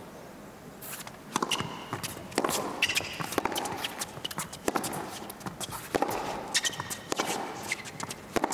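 Tennis serve about a second in, then a baseline rally on an indoor hard court: sharp racket strikes on the ball roughly once a second, with shoes squeaking and footsteps on the court between the shots.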